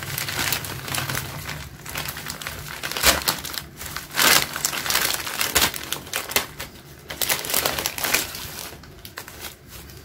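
Plastic courier mailer bag crinkling and rustling in irregular crackles as hands open it and pull a planner out. It dies down about nine seconds in.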